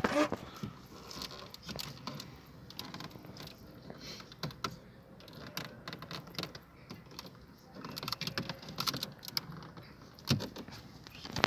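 Small irregular clicks, taps and rattles of plastic dashboard trim being handled and pried off its clips, busier near the end with one louder knock.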